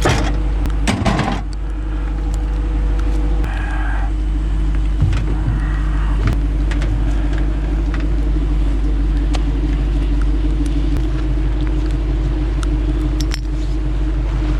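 A vehicle engine idling steadily with a deep rumble and a few scattered clicks.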